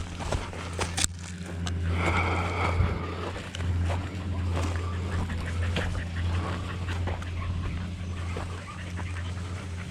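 Texas longhorn cows and calves bawling as a dog pushes them along, over a steady low hum.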